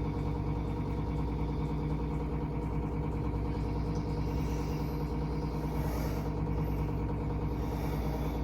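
Steady low droning hum made of several held tones, unchanging in level throughout, with a faint high hiss swelling and fading in the middle.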